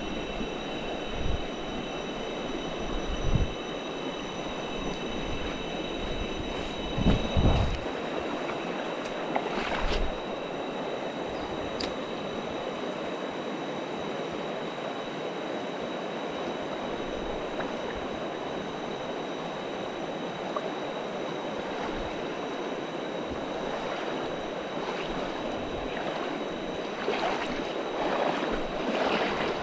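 Steady rushing of river rapids, with thin high steady tones over it, some of which stop about seven seconds in. A few soft thumps in the first ten seconds.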